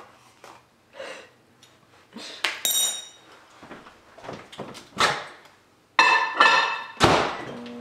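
Clinks and knocks of a fork and small dishes being handled, then a microwave oven being shut and started, its steady hum coming on near the end.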